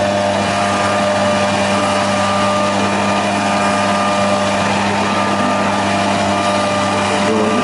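A steady mechanical drone: a constant low hum with overtones over an even rushing noise, unchanging throughout.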